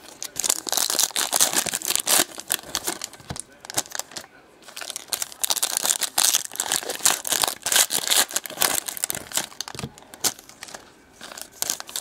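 2017 Select Racing foil card packs crinkling and tearing as they are ripped open and handled by hand, in dense bursts with short lulls about four seconds in and shortly before the end.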